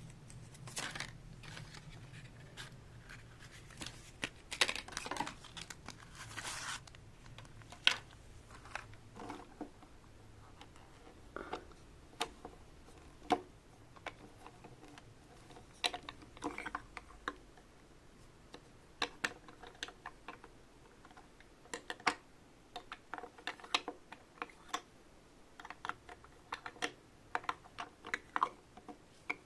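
Small plastic pieces of a Sylvanian Families refrigerator set being handled: scattered light clicks and taps throughout, with a few seconds of rustling about four seconds in.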